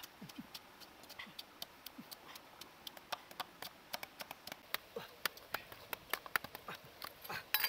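Wooden pestle pounding salak fruit in a coconut-shell bowl, along with a knife cutting fruit on the rock: an irregular run of sharp knocks and clicks, several a second, with a cluster near the end.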